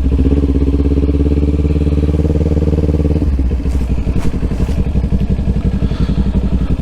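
Motorcycle engine running steadily under way. About three seconds in, the engine speed drops and the note turns into a lower, evenly pulsing beat.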